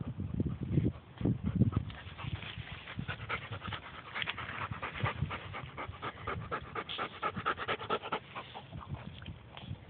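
A dog panting rapidly right at the microphone, a fast even run of breaths starting about two seconds in. Before that, low rumbling thumps.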